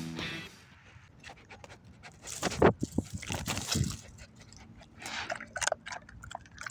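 A dog breathing hard close to the microphone, in short irregular pants with wet mouth sounds, coming in two spells with a lull between them.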